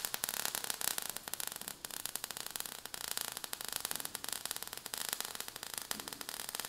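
Low crackling static: a steady hiss broken by many small irregular clicks.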